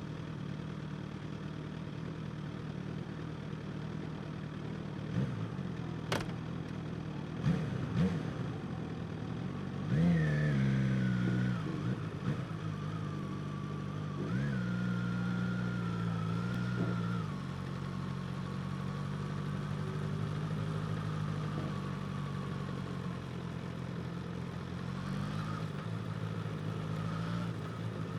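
Suzuki GSX-S1000's inline-four engine with a slip-on exhaust idling steadily, blipped a few times around five to eight seconds in, revved harder about ten seconds in, blipped again twice, then settling back to a steady idle. A sharp click about six seconds in.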